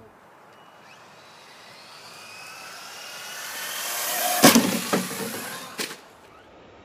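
Traxxas Slash RC truck's electric motor whining higher as the truck speeds up, then hard knocks as it lands about four and a half seconds in, a bounce half a second later and one more knock near the end.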